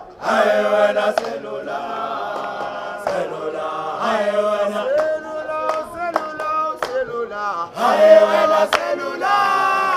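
Background music: a song with singing.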